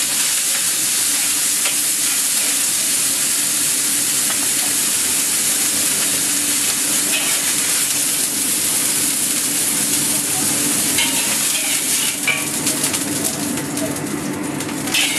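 Chopped green vegetables sizzling steadily in a wok as they are stir-fried with a metal spatula, with a few scrapes and clicks of the spatula against the wok near the end.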